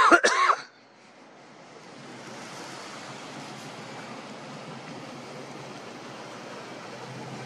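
A brief voice sound in the first moment, then a steady, even rushing hiss of outdoor night-time background noise that swells over a second or so and then holds level.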